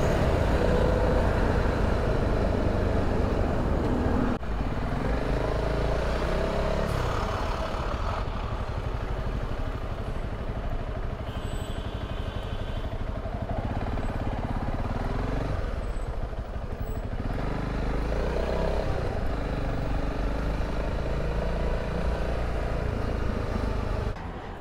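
Honda CRF300 Rally's single-cylinder engine running while ridden through town traffic, its pitch rising and falling repeatedly with throttle and gear changes, over steady wind and road noise.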